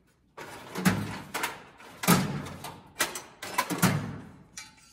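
Knocks and clanks of metal being handled: a cut piece of square steel tubing picked up and knocked against tools and the tool chest, five or six sharp hits about a second apart.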